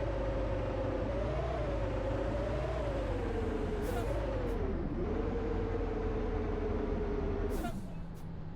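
Bus running with a low rumble and a whine that wavers up and down in pitch. A short hiss comes about four seconds in and again near the end, when the whine stops and the engine settles to a quieter, lower hum.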